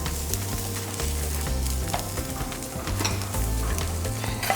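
Chopped garlic sizzling in hot oil in a pan, stirred with a utensil that clicks and scrapes against the pan now and then, over a low background music bass line.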